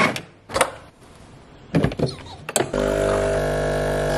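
Espresso machine in use: a few metal knocks and clacks as the portafilter is locked into the group head, then about three seconds in the pump starts a loud, steady buzzing hum as the espresso shot is pulled.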